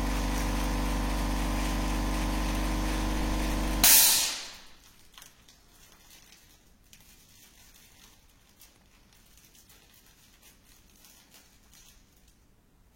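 A machine with a motor running steadily, cutting off about four seconds in with a short, loud hiss that quickly dies away, followed by near quiet with a few faint clicks.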